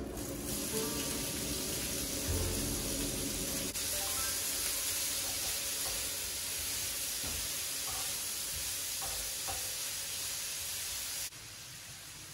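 Sliced onion and red pepper sizzling in hot oil in a stainless steel frying pan as they are stirred with a spatula. The sizzle cuts off suddenly about a second before the end, with faint music underneath.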